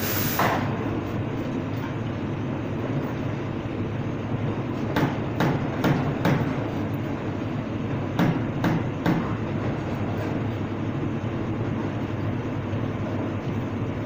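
Espresso-bar prep noises over a steady background rumble: a short hiss at the start, then two clusters of sharp knocks, about four a little before the middle and three more a few seconds later, as the barista handles a portafilter at the espresso machine and grinder.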